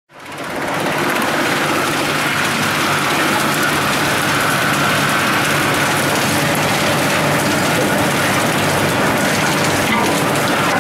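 Teknamotor Skorpion 350EB drum wood chipper and its vibrating conveyor running: a steady mechanical hum with a continuous rattle, fading in over the first second.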